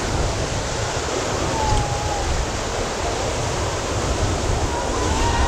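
Whitewater rapids rushing around a raft: a loud, steady roar of churning river water with a heavy low rumble.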